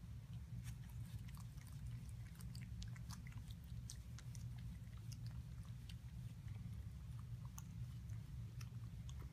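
Cat lapping water from a bowl: many quick, soft, wet tongue clicks, over a steady low hum.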